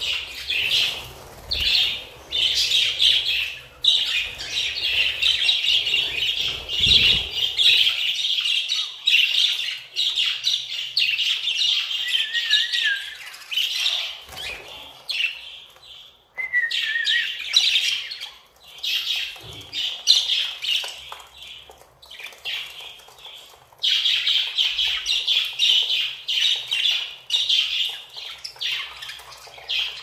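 A flock of budgerigars chattering and warbling together in dense, continuous chirps, dropping off briefly a couple of times midway.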